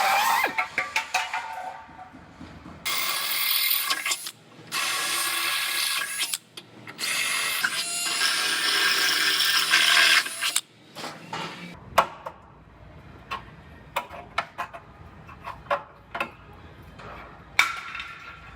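A power tool cutting into the frame rail's sheet metal, running in several loud, hissing bursts with abrupt stops. These are followed in the second half by scattered light clicks and taps.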